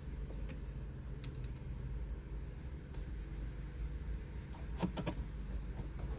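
Light clicks and taps from screws being handled while fitting a car radio into the dash, with two sharper clicks close together near the end, over a steady low rumble.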